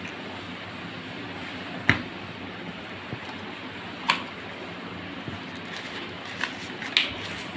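Cardboard phone packaging being handled: a few short, sharp taps and knocks, about four, as the yellow inner sleeve and white trays are lifted and set down, over a steady hiss.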